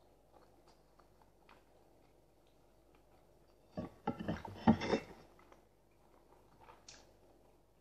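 Soft mouth clicks of chewing a jamón sandwich, then about four seconds in a short run of louder clatter as a mug of tea is handled and raised for a sip.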